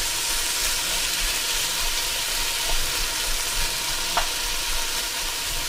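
Diced onion, celery, carrot, zucchini and garlic sizzling in hot olive oil in a Dutch oven: a steady frying hiss as the vegetables sauté until the onions turn soft and translucent.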